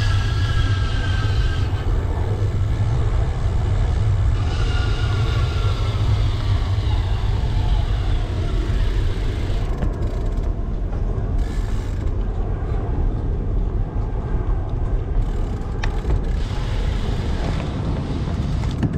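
Wind rumble on the microphone of a moving bicycle, with creaking and ratcheting from the bike's mechanism. Two high, slightly falling squeals sound in the first half, one at the start and one from about four and a half seconds in.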